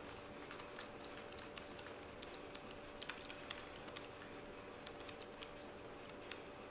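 Computer keyboard typing: faint, irregular key clicks over a low steady hum.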